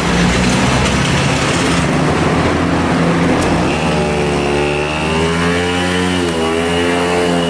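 A motor vehicle engine running close by, its pitch rising and falling from about halfway through, when a steady high whine also comes in.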